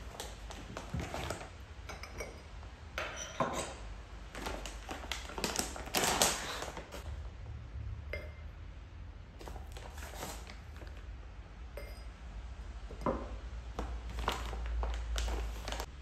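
Handling sounds of a ribbed glass tumbler and glass straw on a stone countertop: scattered light clinks and taps, with a longer rustling stretch about six seconds in as green powder is scooped from a paper pouch into the glass.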